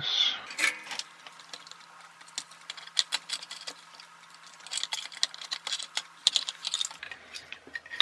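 Irregular small clicks and light rattles of hard plastic toy-car parts and a small circuit board with its wires being handled, with busier clusters of clicks about three seconds in and again about five to six seconds in.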